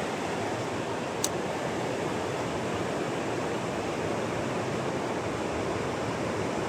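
Steady rush of river rapids, with one short, sharp tick about a second in.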